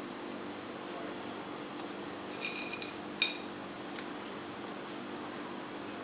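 Light taps and clinks of fried chicken pieces and fingers against a white bowl as they are set around its rim: a few short clicks a little over two seconds in, a sharper clink about three seconds in and a smaller tick at four seconds, over a steady room hum.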